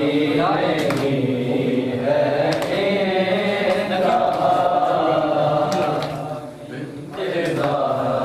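A group of men's voices chanting a Muharram noha (mourning lament) together, with a few sharp slaps in the background. The chant falls away briefly about six and a half seconds in, then resumes.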